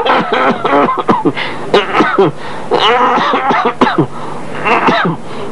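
A person's voice in short, broken vocal sounds with sharp breaths between them.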